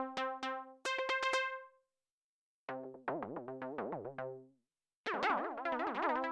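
Dave Smith Instruments Prophet 6 analog polyphonic synthesizer playing a preset dry, with no effects. First come notes retriggered in a fast stuttering pulse, stepping up in pitch. After a short break, two held notes follow, higher each time, with pitch that wobbles quickly up and down.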